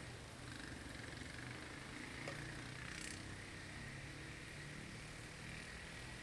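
Blizzard ambience: a steady, quiet wind hiss over a low rumble, with a faint held whistle in it and a small click a little past two seconds in.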